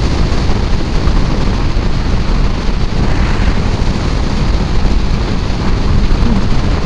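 Loud, steady wind rush on the microphone of a Kawasaki Ninja 650 motorcycle at highway speed, with the bike's engine and road noise underneath.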